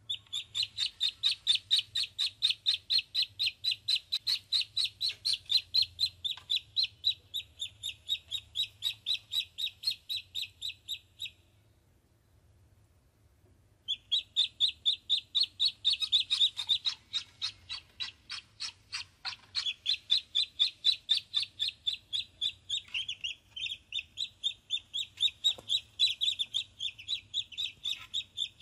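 Domestic ducklings peeping, a rapid, steady string of high chirps about four a second, breaking off for a couple of seconds about eleven seconds in and then resuming.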